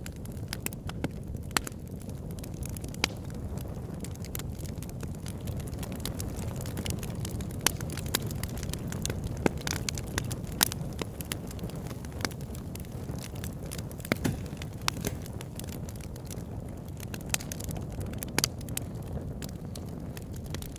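Campfire burning: a steady low rumble of flame, with irregular sharp crackles and pops scattered throughout.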